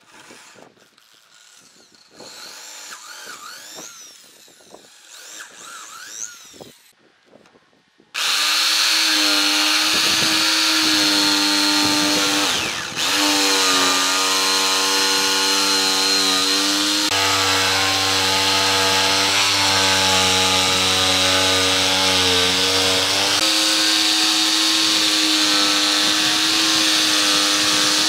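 An electric power tool's motor starts abruptly about eight seconds in and runs steadily with a high whine, dipping briefly once and shifting pitch slightly a few times. Before it come quieter scraping and squeaking sounds.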